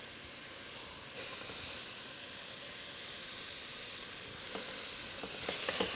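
Chopped onion and yellow zucchini sizzling steadily in olive oil in a stainless steel pot, browning for roasted flavour. A few faint ticks near the end as more vegetable pieces go in.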